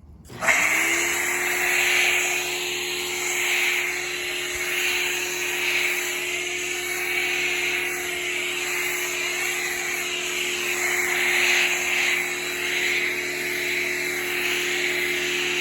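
A pressure washer starting up as the trigger is pulled, its motor and pump quickly reaching speed and running steadily, with the loud hiss of water and soap spraying through a foam cannon.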